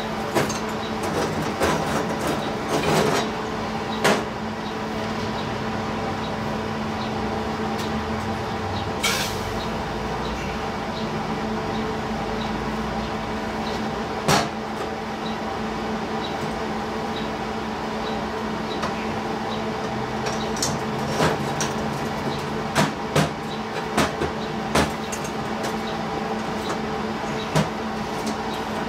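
Steel square tubing handled and set down on a steel welding table: scattered sharp metal clanks and knocks, bunched in the first few seconds and again about two-thirds of the way through, over a steady machine hum.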